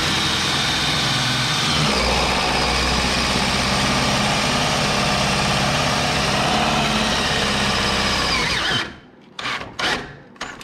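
Power drill running steadily under load, driving a self-tapping screw; its pitch shifts about two seconds in as the screw bites. It stops suddenly near the end, followed by a few short bursts.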